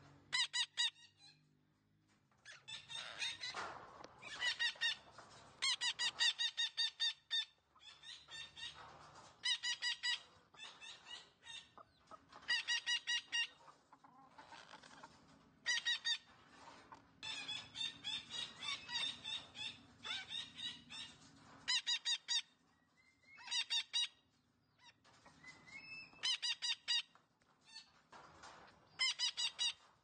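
Red-breasted parakeet calling in repeated bouts, each a rapid run of short, identical pitched notes lasting one to three seconds, with short pauses between bouts.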